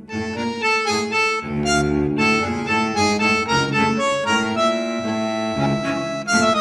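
Instrumental music: a melody of short pitched notes over a bass line, with no singing.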